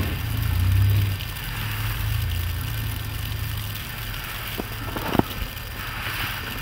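Ford Explorer's engine running low as the SUV pulls slowly up a snowy hill, its rumble fading as it moves away. A sharp click about five seconds in.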